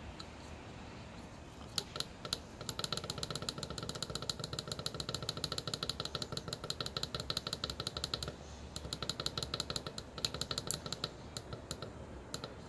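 Small tactile push-buttons on a boost converter module's control board being clicked: a couple of single clicks, then a rapid run of several clicks a second as the voltage setting is stepped down, a brief pause about eight seconds in, then more rapid clicking.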